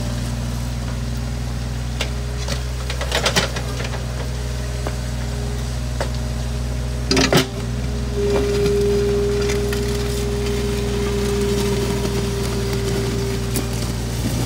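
Mini excavator's diesel engine running steadily under load while it digs a trench, with a steady hydraulic whine from about eight seconds in until near the end. The bucket knocks against soil and roots a few times around three seconds in and once more sharply about seven seconds in.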